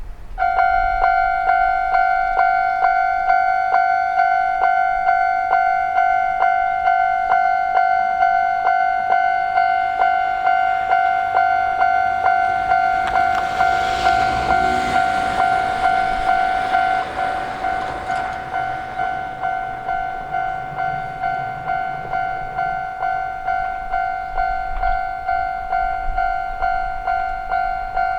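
Japanese railroad crossing alarm ringing its clanging 'kan-kan' in a quick, even rhythm, starting just after the beginning. About halfway through, a train's rushing noise swells and fades over a few seconds while the bell keeps sounding.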